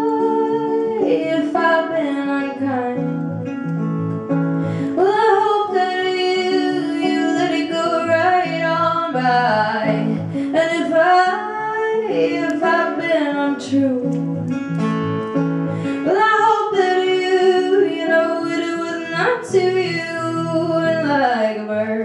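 A woman singing solo to her own acoustic guitar, with long held notes that slide up and down in pitch over a steady guitar accompaniment.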